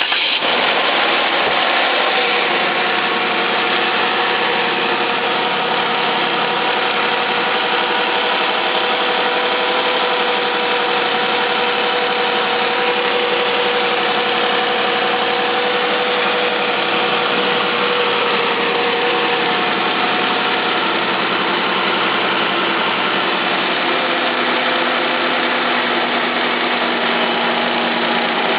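A 2012 Jeep Wrangler's 3.6-litre Pentastar DOHC V6 idling steadily just after a cold start. The tone of the idle shifts lower about two-thirds of the way through.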